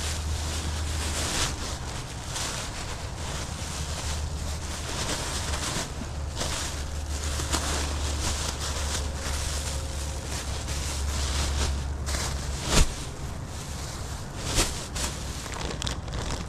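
Thin plastic bags full of clothing rustling and crinkling as they are pulled open and shifted about on a car seat, over a steady low rumble. Two sharper knocks stand out near the end.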